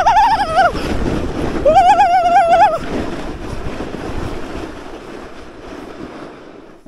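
A person yelling while riding a homemade snow slide: two long, wavering shouts in the first three seconds over a rushing hiss of the slide and wind, which fades away steadily.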